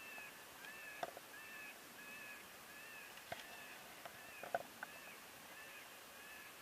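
Short, high calls repeating steadily about twice a second, with a few faint clicks among them.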